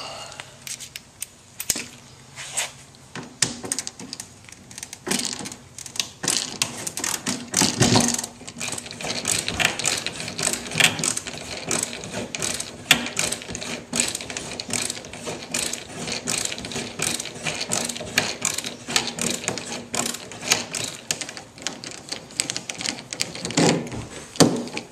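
Hand screwdriver backing out the bolts that hold a wooden seat frame to a canoe gunwale: rapid, irregular mechanical clicking throughout, with a few louder knocks.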